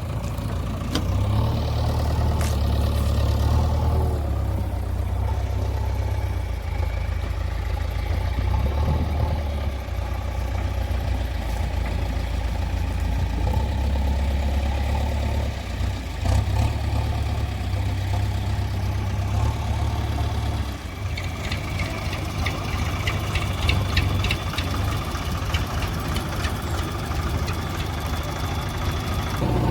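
Heavy diesel machinery running with a steady low drone. About two-thirds of the way through the drone eases and a rapid metallic clattering starts.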